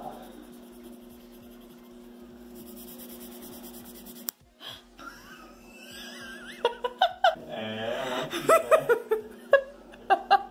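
Colored pencil shading back and forth on paper, then a sharp snap about four seconds in as the pencil tip breaks. Giggling and laughter follow.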